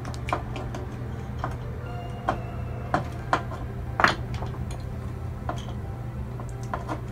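Irregular small clicks and taps of hands handling electrical wires and metal switch boxes, the sharpest about four seconds in, over a steady low hum.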